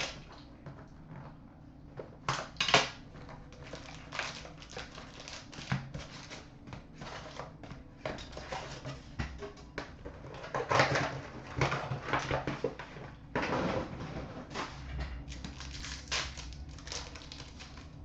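Irregular crinkling, rustling and tapping of a hockey card box and its packs being opened and the cards handled, with sharper bursts about three seconds in and around eleven seconds in.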